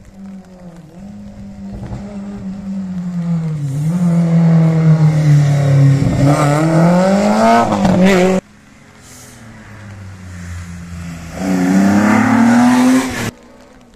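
Rally car engine at full throttle on a stage, its note rising and falling with gear changes and lifts as the car comes closer. The sound drops away abruptly twice, about eight seconds in and just before the end.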